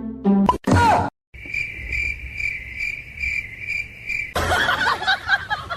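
Cricket chirping: a steady, high, even chirp repeating about three times a second for roughly three seconds. It is preceded by a brief end of music with a falling glide, and followed near the end by a louder jumble of noise.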